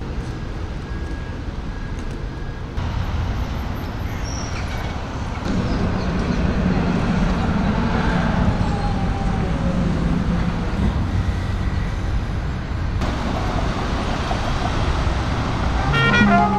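City street traffic: a steady wash of passing cars, a van and trams, with a low engine hum in the middle. Just at the end a busker's trumpet starts to play.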